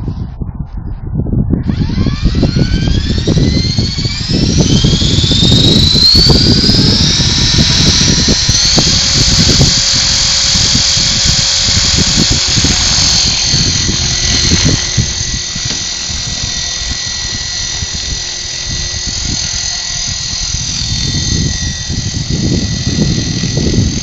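Radio-controlled nitro model helicopter spooling up: a high whine rising in pitch over about six seconds, then holding steady at flying speed. Wind buffets the microphone throughout.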